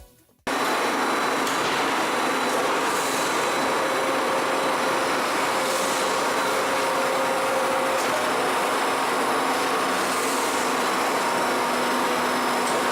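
Steady mechanical running noise of a machine: a dense, even whir with faint steady hum tones, starting abruptly about half a second in.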